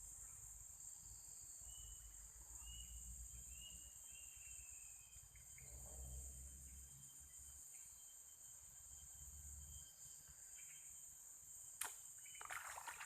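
Faint steady high-pitched drone of insects such as crickets, with a run of short, high chirps a few seconds in. Near the end come clicks and rustling of something being handled.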